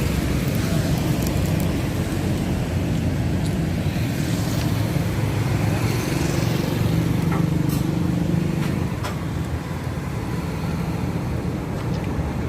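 Steady low rumble of road traffic, with a few short sharp clicks.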